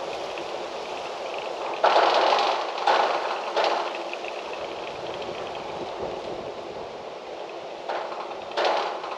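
Wind blowing steadily with a rustling hiss, broken by sudden louder gusts: three in quick succession about two seconds in, and two more near the end.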